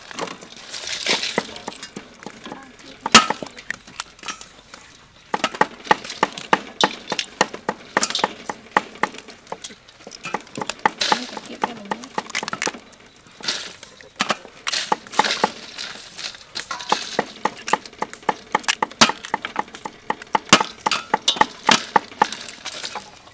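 Small crabs' shells cracking and snapping as their top shells are pried off and the bodies broken by hand, with clinks and splashes in a steel basin of water. One crack about three seconds in is much louder than the rest.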